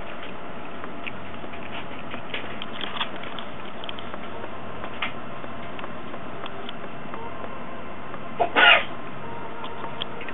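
Faint clicks of a Siamese-mix cat eating from a person's fingers, over a steady background hiss, then one short, sharp, loud burst about eight and a half seconds in.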